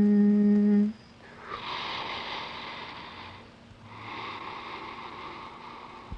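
A long held vocal note at a steady pitch ends abruptly about a second in. Two soft hissing swells follow, each about two seconds long.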